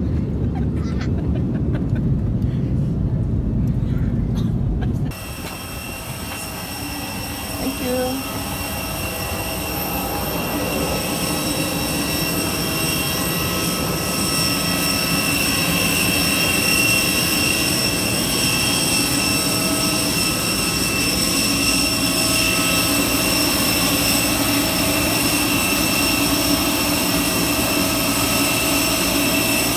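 Low, steady rumble of an airliner cabin. About five seconds in it cuts to a jet-turbine whine on the apron, with several steady piercing tones, growing louder over the next ten seconds and then holding.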